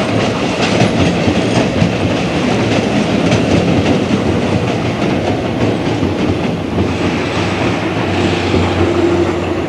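Southern Pacific Daylight passenger cars rolling past close by, a steady rumble with the wheels clicking over the rail joints.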